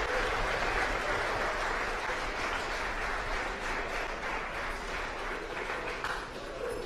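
Crowd applauding in response to the Falcon 9's main engine cutoff, a steady wash of clapping that slowly fades toward the end.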